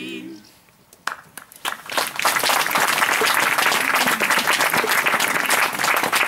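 The last held sung note of an unaccompanied song dies away. About a second later an audience starts clapping, a few scattered claps at first, then steady applause from about two seconds in.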